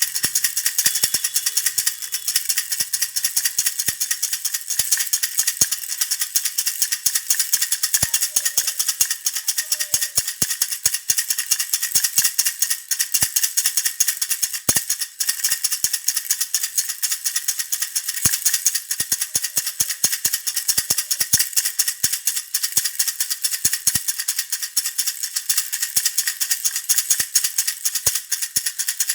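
Baby rattle (jhunjhuna) shaken without pause: a dense, fast, even rattling, bright with little bass.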